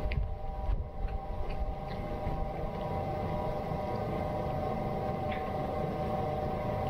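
A steady droning tone of several pitches, held throughout, over a low rumble of wind on the microphone. A few faint clicks come from a cat chewing a rotisserie chicken.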